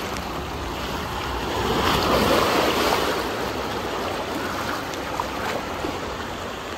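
Water rushing and splashing as a rider slides down a water slide and into its shallow run-out lane, loudest about two to three seconds in.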